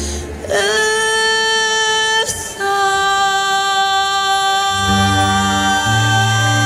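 A woman singing two long, held notes in a slow ballad, with a short break between them a little after two seconds in. Low accompaniment notes come in underneath near the end.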